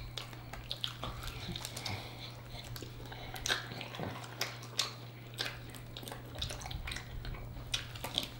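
Close-up eating of saucy chicken wings: wet lip smacks, chewing and sucking as the meat is stripped off the bones, heard as scattered short sharp clicks. A steady low hum sits underneath.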